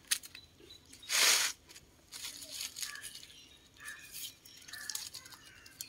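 Dry palm-leaf strips crackling and rustling as they are pulled and tucked by hand into a woven mat, with one louder, longer rustle about a second in.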